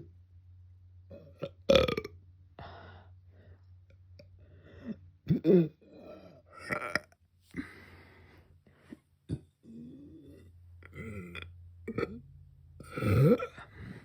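A woman burping repeatedly. There are loud burps about two seconds in and around five and a half seconds, smaller ones in between, and a long one near the end that falls in pitch.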